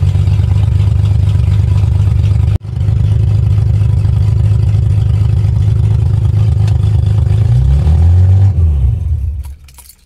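1970 Mercedes-Benz 250's 2.5-litre inline six running loud and rough with an open header and no exhaust behind it, heard from inside the cabin. Near the end it rises briefly in pitch, then is switched off and winds down to a stop.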